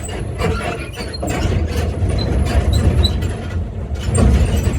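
Zoo tram running with a low engine rumble and clattering rattles as it bumps over a cattle guard.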